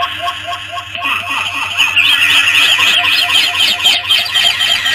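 A dense chorus of many bird chirps, growing louder about two seconds in, over a steady repeating pulse.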